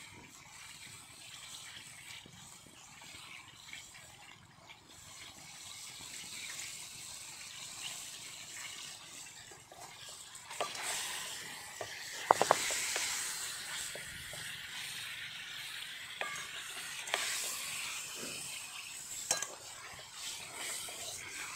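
Chicken pieces sizzling in ghee in a karahi, faint at first and louder from about ten seconds in as they are stirred and turned with a wooden spoon. A few sharp knocks and scrapes come from the spoon against the pan, the loudest around the middle.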